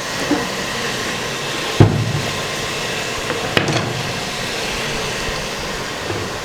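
Steady sizzling in a hot pan as ground masala paste goes into the cooking tomato and onion, with one heavy knock about two seconds in and a lighter click a little later.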